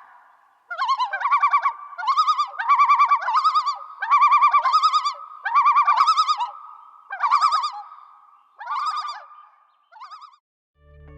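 Common loon calling: a long run of short, rapidly quavering phrases, repeated about once or twice a second and fading out near the end.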